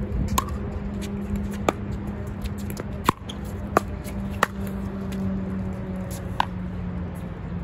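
Pickleball rally: about six sharp, hollow pops of paddles striking the plastic ball, irregularly spaced and a second or so apart. A steady low hum and wind rumble run underneath.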